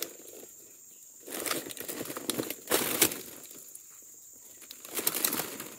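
Oil palm fruit bunches being shifted by hand in a woven basket: scratchy rustling and crackling of the bunches against the basket, in two bouts, the first starting about a second in with a sharp crack near its end, the second shorter one near the end.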